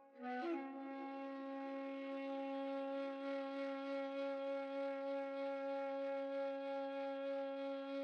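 Music: one low, sustained wind-instrument note that starts with a short upward slide about half a second in and is then held steady.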